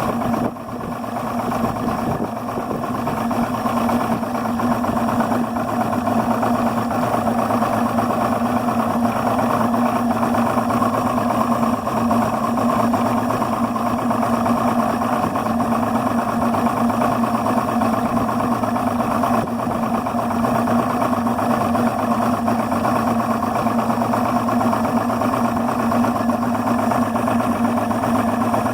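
Yamaha 300 HPDI two-stroke V6 outboard idling steadily but roughly at a low 400–500 rpm, a rough idle whose cause the owner does not know.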